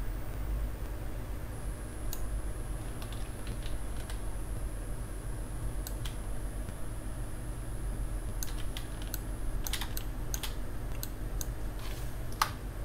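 Computer keyboard and mouse clicks: scattered short taps, sparse at first and coming thicker in the second half, over a steady low hum.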